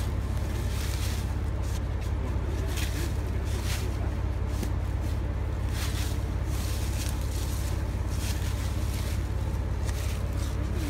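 Steady low rumble of wind on the microphone, with scattered short rustles and scrapes in dry leaves as a raccoon with its head pinned under a fallen log struggles.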